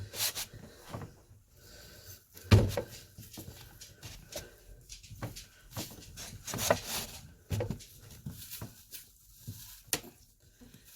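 An apple peeler being worked on a firm apple: irregular knocks, clunks and scraping as the apple resists going through. The loudest knock comes about two and a half seconds in.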